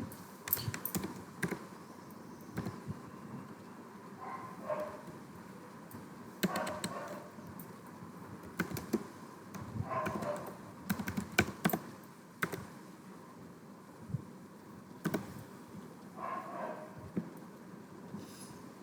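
Typing on a computer keyboard: irregular clusters of sharp key clicks, with pauses between them.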